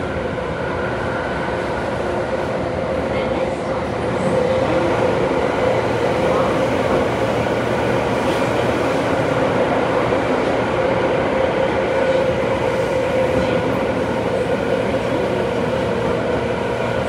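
Running noise heard inside a Tobu 9000 series electric train car travelling through a subway tunnel: a continuous rumble of wheels on rail with a steady hum, growing louder about four seconds in.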